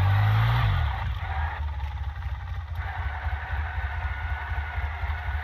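Quad bike (ATV) engine revving for about a second, then settling into steady low running.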